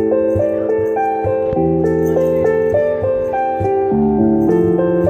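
Stage keyboard played live: held chords that change every second or so, with a higher melody line moving above them.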